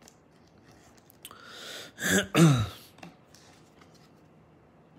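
A man clears his throat about two seconds in: a rasping breath, then a short voiced grunt falling in pitch. Faint ticks of a plastic card top loader being handled lie around it.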